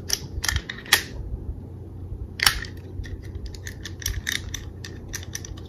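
Metal parts of an IWI Uzi .22 pistol clicking and clacking as its cover is pulled back and a part lifted off during field-stripping. Three sharp clicks come in the first second, a louder clack about two and a half seconds in, then a run of lighter clicks.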